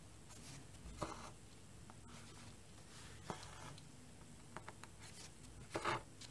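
Faint scratchy rasps of a needle and floss being drawn through cross-stitch fabric, with light rustling of the fabric in its hoop. There are a few separate strokes, about two seconds apart.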